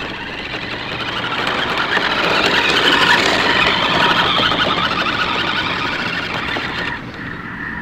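Radio-controlled toy car's electric motor running and its wheels rolling over dirt and grass; louder about three seconds in, dropping off near the end.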